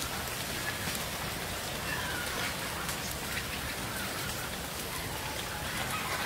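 A steady hiss of outdoor noise with a few faint clicks.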